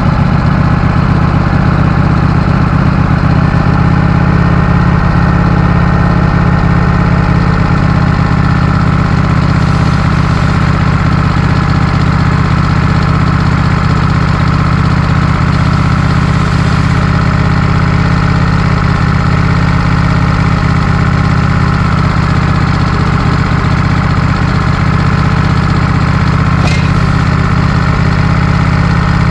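Wood-Mizer LT15 Go portable band sawmill's engine running steadily and loudly, with one brief click late on.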